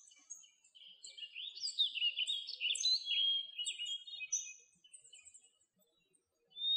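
Songbirds chirping and twittering, many short overlapping calls that glide in pitch. The calls break off for about a second and a half near the end, then start again.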